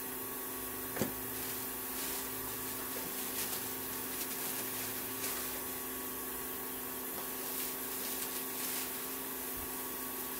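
Faint rustling of plastic wrap and handling of an unpowered bench grinder, over a steady background hum, with a single sharp click about a second in.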